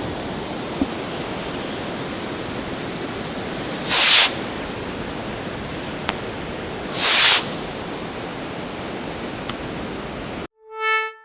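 Two Fat Tail consumer fireworks rockets launching with short whooshes about three seconds apart, over a steady hiss, with a few faint pops from their weak breaks.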